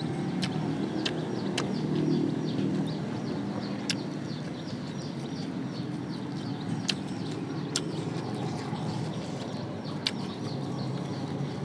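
A person eating close to the microphone: chewing, with sharp mouth-smacking clicks every second or few seconds.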